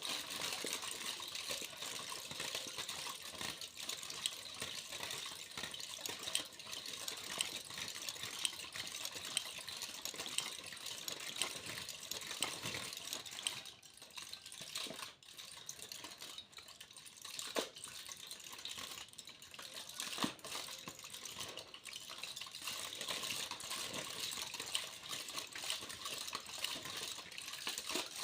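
Aluminium foil crinkling and rustling in close-up, a continuous crackle of many small sharp clicks, briefly quieter about halfway through.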